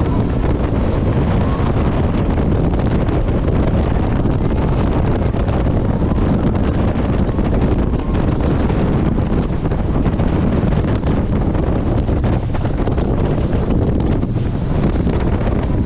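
Wind buffeting the camera microphone on a jet boat running at speed, over the rush of the boat's engine and water jet: a loud, steady rumble.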